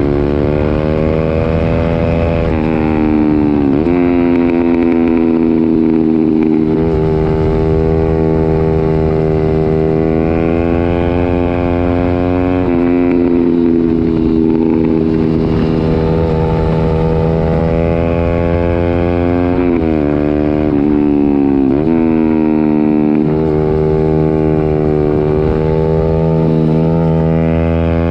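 Honda CB125R single-cylinder four-stroke engine running through a full IXRACE M9 exhaust with the baffles removed, loud throughout. The engine pitch rises and falls repeatedly, with several sudden drops where the revs come down.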